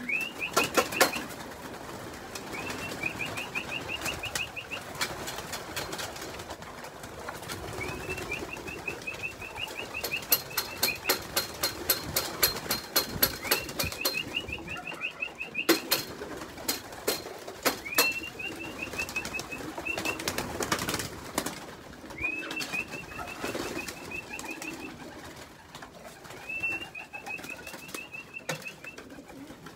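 A person whistling a short rising, trilled whistle over and over, about every three seconds, to call young racing pigeons to the loft's flying chute, mixed with sharp claps and the wing flaps and cooing of the pigeons. A quick, even run of claps or clicks comes near the middle.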